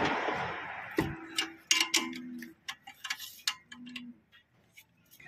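A hiss fades out in the first second. Then come scattered light metallic clicks and clinks of hand tools and metal parts being handled, a few of them ringing briefly with a short note.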